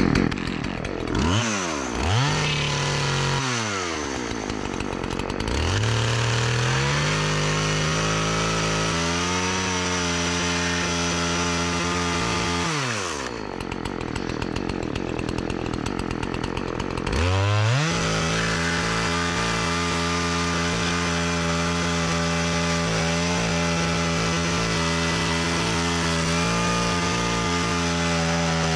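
Partner 405 two-stroke chainsaw revved up and down, then held at high revs cutting into hard almond wood. Around thirteen seconds in it drops back to a lower speed, then revs up again a few seconds later and runs steadily. The engine takes full throttle without stalling, the fault it was repaired for, but the chain is very slack and cuts slowly.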